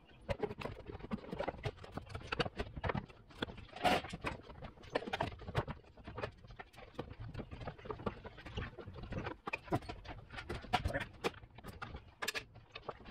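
Irregular clattering knocks and clicks as parts are worked back into place in a pickup truck's engine bay during reassembly.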